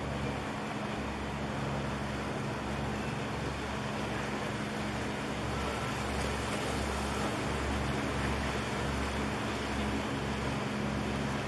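Steady low engine drone that pulses unevenly, over a constant hum and an even background hiss.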